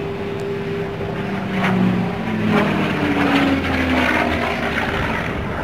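P-51D Mustang's Packard Merlin V-12 piston engine running in flight overhead during aerobatics. It grows louder partway through, and its pitch slides down over a second or so.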